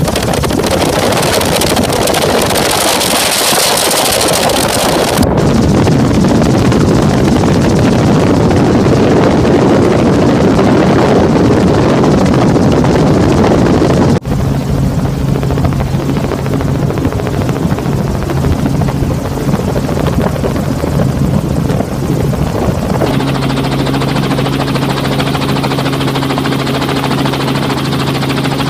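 Helicopter engine and rotor noise with rushing air, steady and loud, as heard from on board. The sound changes suddenly several times, and in the later part a steady low hum with a couple of held tones stands out.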